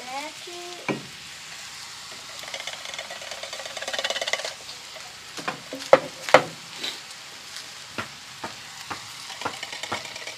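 Ground venison and bacon sizzling in a cast-iron skillet over charcoal. Canned sloppy joe sauce pours into the pan a few seconds in. After that come sharp metal knocks, the loudest about six seconds in, then a run of regular taps as the sauce is scraped out of the can with a spoon.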